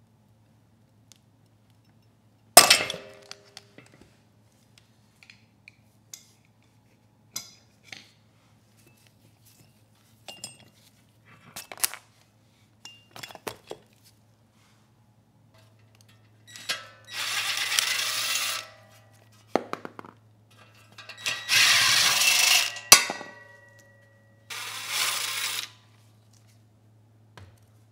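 Small-engine teardown in metal: a sharp metallic bang with a brief ring about two and a half seconds in as the puller breaks the generator rotor loose from the crankshaft taper, then scattered clinks of tools and parts. Later come three longer scraping, rubbing stretches, each a second or two, as the engine is handled and shifted on cardboard.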